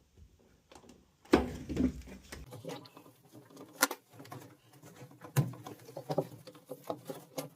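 Hands handling the washer's drain pump area: a sharp click with a brief low rumble, then scattered small plastic clicks and knocks.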